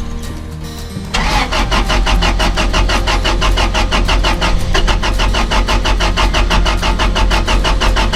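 A truck engine being cranked by its starter motor in a steady, rapid chug without firing. It pauses briefly about a second in, then cranks on. This is a no-start, with a P0335 crankshaft position sensor code stored.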